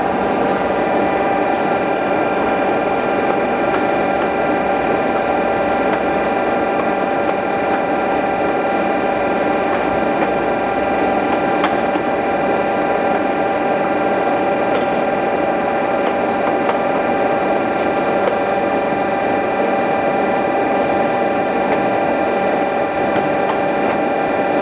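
Defum KNA 110/135 vertical turret lathe running with its side head under power feed: a steady gear whine of several tones over a constant machine hum.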